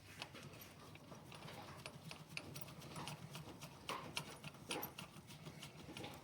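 Faint, irregular metallic clicks and taps of hand tools working a bolt on the tractor's clutch assembly as it is being tightened.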